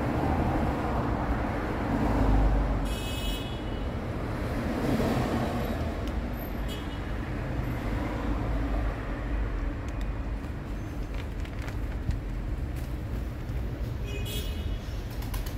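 Steady rumble of road traffic, with two brief high-pitched tones, one about three seconds in and one near the end.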